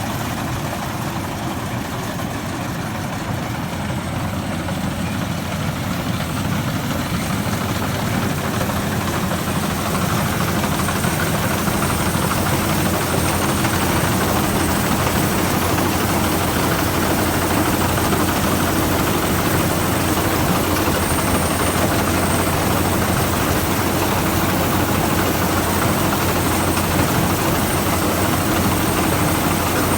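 Rice combine harvester running steadily under harvesting load, a continuous engine drone that grows louder over the first ten seconds or so, then holds level.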